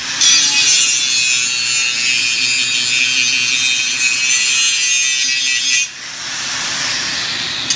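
Power grinder working against metal with a steady, high hiss. It drops sharply about six seconds in, continues more softly, and rises again right at the end.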